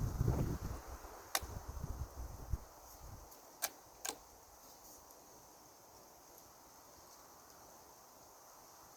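Rustling handling noise, then three sharp metallic clicks about a second and a half, three and a half and four seconds in, typical of a Keystone Cricket single-shot .22 bolt-action rifle being loaded and its bolt cocked before a shot. Faint steady hiss after that.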